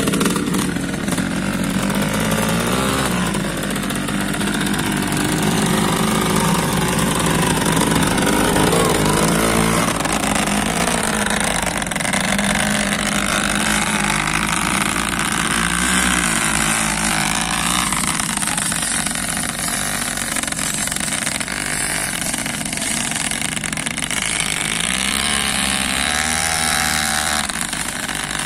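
Motorcycle engine running hard under a heavy timber load, the revs rising and falling again and again.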